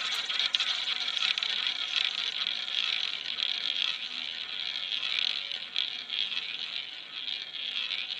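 Roulette ball rolling around the track of a spinning roulette wheel, a steady high whirring hiss.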